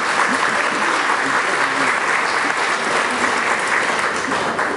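Congregation applauding in a church hall, a steady dense clapping that begins to die down near the end.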